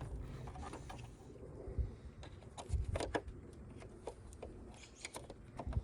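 Scattered small plastic clicks and knocks from handling a tail-light wiring connector as its red locking tab is pushed home.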